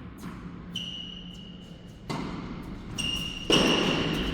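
Tennis play on an indoor court: a series of sharp knocks from racket hits and ball bounces, the loudest near the end, with high squeaks of shoes on the court surface.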